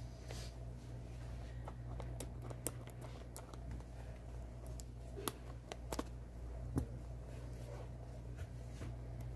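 Hands handling and turning a cardboard smartphone box, making scattered light clicks and scratching sounds over a steady low hum.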